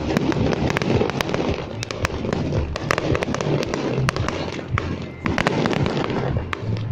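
Fireworks display: a rapid, irregular stream of bangs and crackles from exploding shells.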